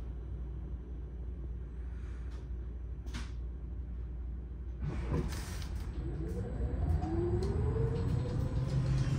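Inside a Mercedes-Benz eCitaro articulated electric bus: a steady low rumble with a short hiss about three seconds in. About five seconds in comes a burst of noise and clicks, then the electric drive's whine rises steadily in pitch and the rumble grows louder as the bus accelerates.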